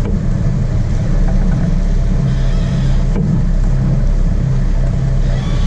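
Charter fishing boat's engine running steadily, a constant low drone.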